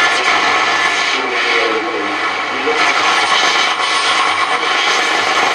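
Roberts R707 transistor radio being tuned across a band: loud hiss and static between stations, with faint snatches of broadcast voice and wavering whistles coming and going.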